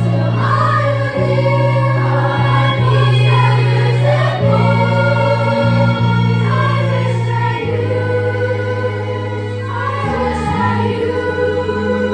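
Young voices singing together in a choir, in long held notes over an instrumental backing with low bass notes that change every few seconds.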